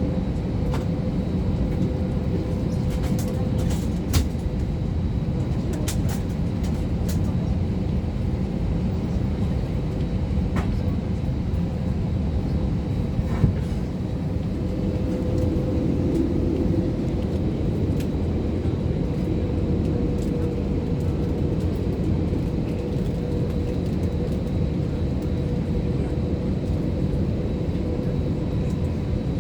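Airliner cabin noise: the aircraft's engines and cabin air running steadily as a low drone with a constant hum, and a few light clicks in the first several seconds.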